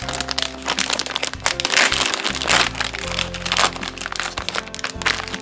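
Plastic surprise bag being torn open by hand and its silver foil packaging crinkled, a dense run of crackles, over background music.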